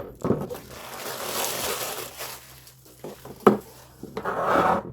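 Rustling and handling noise of packaging, with a sharp click or knock about three and a half seconds in.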